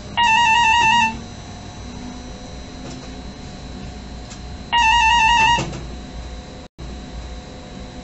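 Electronic warbling alert tone in the driver's cab of a Stadler FLIRT electric train, sounding twice for about a second each, some four and a half seconds apart, over the steady hum of the moving train.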